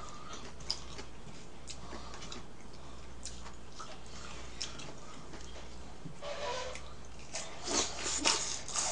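Eating sounds: small clicks of chopsticks in the bowls and chewing, then from about six seconds in, a run of slurping as jajangmyeon noodles are sucked up.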